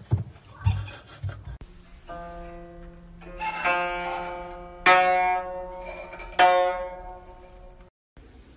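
Guzheng strings plucked by a cat's paw: about five scattered, irregular notes that ring and fade, the loudest two in the second half. A couple of soft thumps come first.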